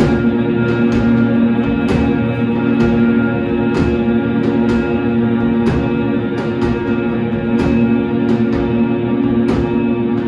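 Rock band playing an instrumental passage: electric guitars and baritone bass hold a dense, sustained drone while the drummer hits cymbals about twice a second.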